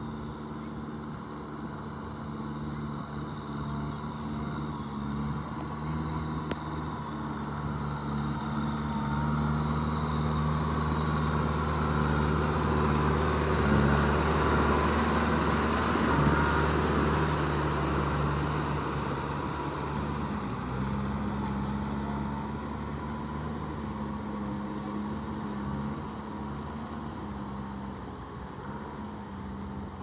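Kubota M6240SUH tractor's diesel engine running steadily under load while its rear rotary tiller churns through flooded paddy mud. The sound grows louder toward the middle as the tractor comes close, then fades again.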